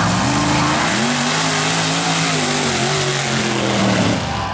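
Mud race truck's big-block V8 running hard at full throttle down the track. The engine pitch rises and falls twice.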